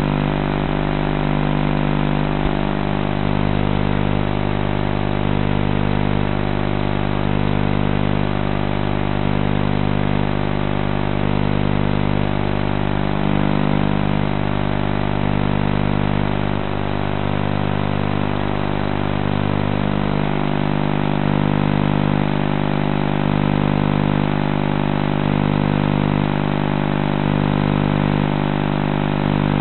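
450-size RC helicopter's motor and rotor running at a constant speed: a steady, unbroken hum with no rise or fall in pitch.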